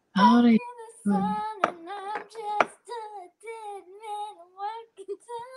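A girl singing a few short, high-pitched phrases, her voice wavering up and down, after a louder opening syllable.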